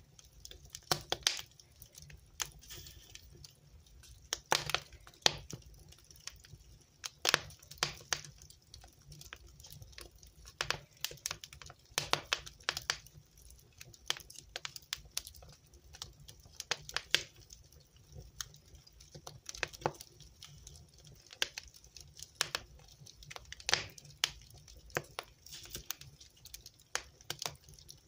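Wood fire crackling in a fireplace: irregular sharp pops and snaps, several a second and unevenly spaced, over a low steady rumble of the burning.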